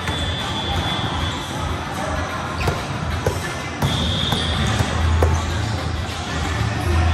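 A volleyball bounced a few times on a gym floor, a series of sharp thuds in a large hall.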